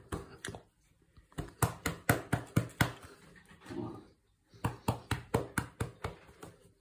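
A hand patting a cat's back in quick rhythmic runs of soft thumps, about five a second, in three bursts with short pauses between them.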